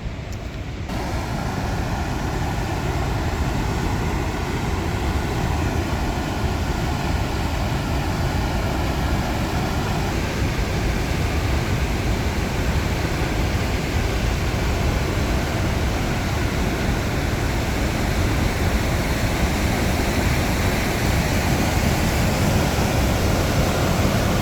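Kicking Horse River rushing through the rock channel under Natural Bridge, a loud, steady wash of fast water that swells over the first couple of seconds and then holds.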